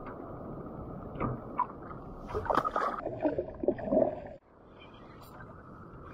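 Water lapping at a kayak hull, then a burst of loud splashing about two seconds in as a released snapper hits the water beside the kayak. The splashing stops suddenly a little after four seconds, leaving a quieter, steady wash of water.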